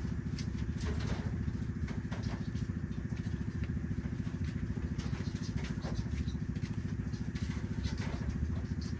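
A small engine running steadily at idle, a low, even, fast-pulsing hum, with scattered light clicks over it.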